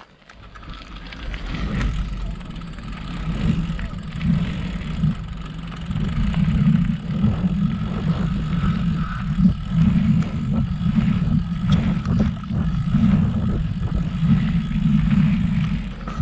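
Mountain bike riding fast over a dirt trail's rollers, filmed from a handlebar-mounted action camera: wind buffeting the microphone and knobby tyres rumbling on the dirt, with scattered rattles and knocks from the bumps. The rumble builds over the first couple of seconds as the bike picks up speed, then stays loud.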